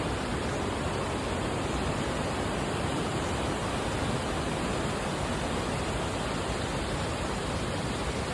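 Waterfall and fast river water roaring steadily over rocks.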